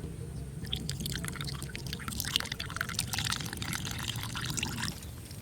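Water dripping and pouring, with small irregular splashes.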